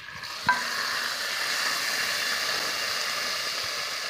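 Hot ghee tadka with fried onions and Kashmiri red chili poured from a pan onto chicken nihari, sizzling in a steady hiss. A metal clink of the pan comes about half a second in.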